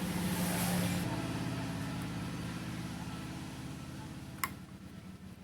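Hot-air rework station blowing with a steady hum and hiss while an SMD diode is desoldered from the board, slowly getting quieter. A single sharp click comes about four and a half seconds in.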